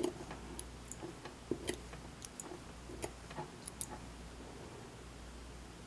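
Faint, irregular light clicks and taps of small objects being handled on a work surface, thinning out about four seconds in.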